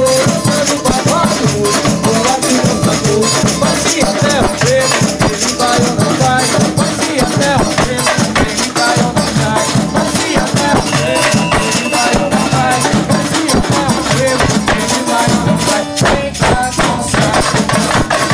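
Samba batucada percussion playing continuously: surdo bass drums under metal jingle shakers (chocalhos). A man sings through a microphone over it for the first few seconds.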